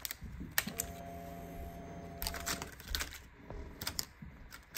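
Ignition key jingling and clicking as it is turned on a Honda CB125R, followed by a steady electric hum for about two seconds, typical of the fuel pump priming at key-on. A few more light key clicks and rattles come near the end.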